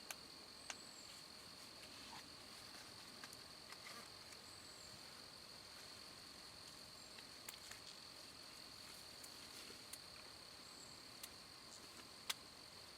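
Near silence in the woods: a faint, steady high-pitched ringing drone, with a few soft chirps and scattered small ticks and snaps, one a little louder near the end.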